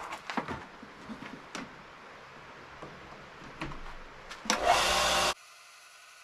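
Scattered light clicks and knocks of a tool and its cord being handled, then about four and a half seconds in an electric sanding tool switches on and runs loudly for under a second before cutting off suddenly.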